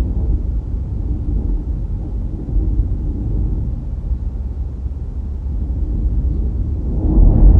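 Low, uneven rumble of wind and road noise from a car on the move, growing louder near the end.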